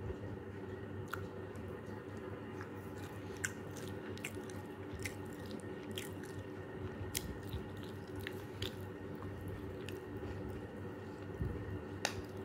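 Someone eating spiced rice with a metal spoon: scattered sharp clicks of spoon and chewing over a steady low hum, the loudest click near the end.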